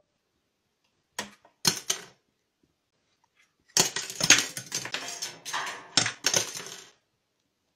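Plastic forks falling out of a venetian blind and clattering against the blind's slats: two short clacks, then a rapid run of rattling clatter lasting about three seconds.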